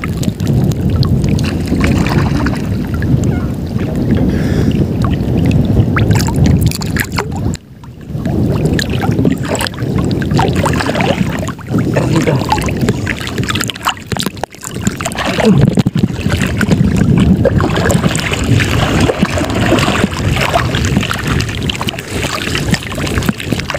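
Wind buffeting the microphone over choppy sea water, with water sloshing and splashing around people wading chest-deep; the noise drops away briefly twice.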